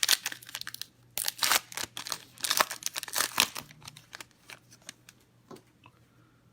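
Plastic wrapping on a box of trading cards being torn open and crinkled, in a quick run of rips and rustles that thins out to a few faint rustles after about four seconds.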